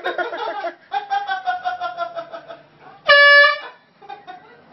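A person's shout and long, falling cry. About three seconds in comes a loud, half-second blast of an air-horn sound from a phone's speaker.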